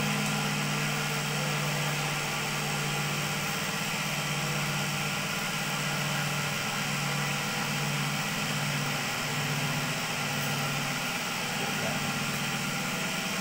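Cotton candy machine running: a steady motor hum from the spinning head over a steady hiss, the hum pulsing slowly for a few seconds in the middle.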